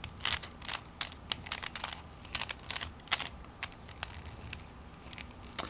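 Plastic Rubik's Cube Twist puzzle being turned by hand, its layers clicking and clacking irregularly, about two or three clicks a second.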